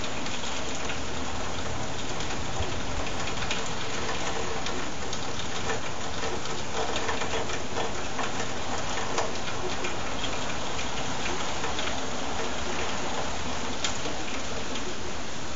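Steady heavy rain falling, with many small raindrop taps through the hiss, picked up by a webcam microphone.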